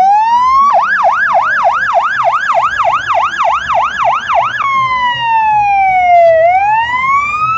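Fire engine siren sounding: a rising wail switches to a fast yelp of about three to four pitch sweeps a second. It then changes back to a slow wail that falls and rises again.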